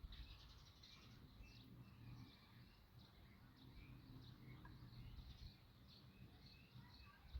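Faint outdoor ambience with scattered short, high bird chirps over a low rumble.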